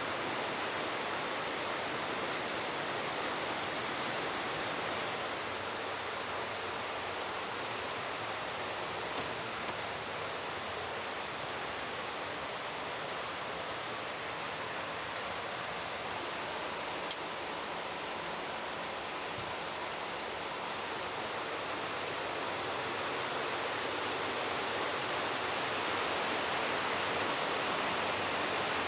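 Steady rush of falling water, with a single brief click about seventeen seconds in.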